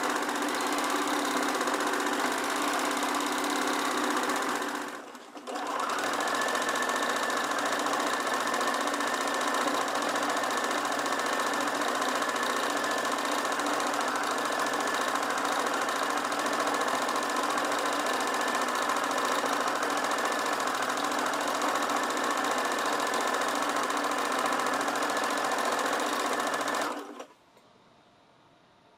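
Domestic sewing machine running steadily as it stitches through quilt layers. It stops briefly about five seconds in, then runs on and cuts off near the end.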